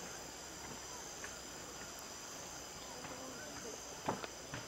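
Chorus of insects at dusk: a steady, high-pitched chirring of crickets or similar insects. There are two faint knocks near the end.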